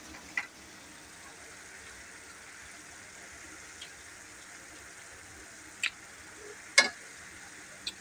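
Adobong sitaw simmering faintly in an aluminium wok, with a few sharp clicks of a metal spoon and ladle against each other and the pan as broth is scooped out, the loudest click near the end.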